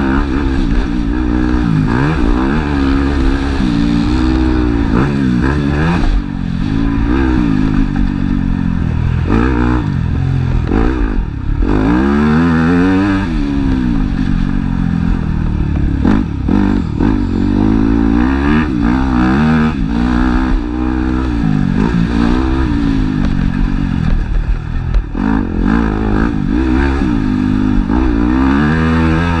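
Motocross bike engine heard close up from an onboard camera on the bike, revving hard and falling back over and over as the rider accelerates out of turns, shifts and shuts off into corners.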